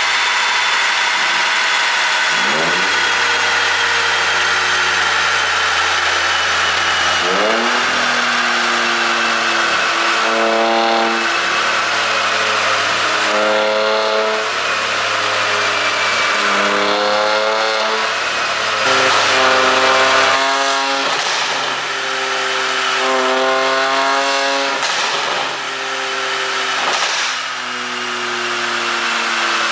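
Mercedes-Benz W222 S400 4Matic V6 engine revved again and again in short blips, its pitch climbing steeply and falling back each time. Scattered pops and crackles sound from the exhaust as the revs drop, the overrun pops of an ECU pop-sound tune.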